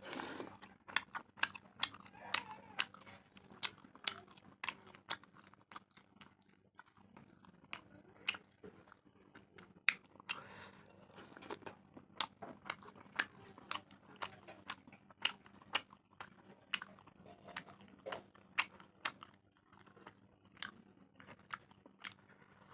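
A person chewing and biting food close to the microphone: irregular sharp wet mouth clicks and smacks, about two a second.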